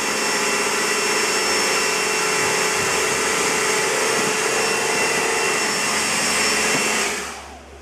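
Electric pressure washer running steadily, a motor hum and whine over the hiss of the water jet. It winds down and fades out about seven seconds in.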